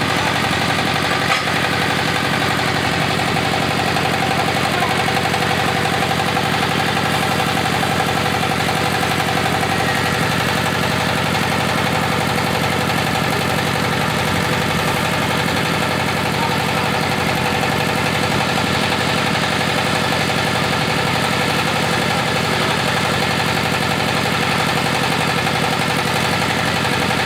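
Engine of a GY-200-1A drilling rig running at a steady speed, with a single short tick about a second in.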